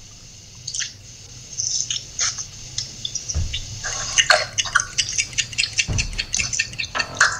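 Loud, wet chewing and lip-smacking of a person eating, a busy irregular run of sharp little clicks and smacks over a video call, with a couple of dull low thumps about three and a half and six seconds in.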